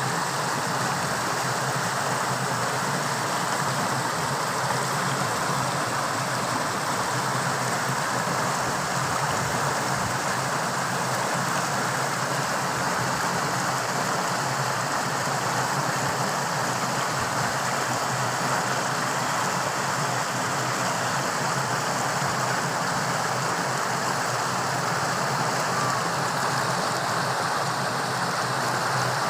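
Fast-running water rushing steadily, an even unbroken rush.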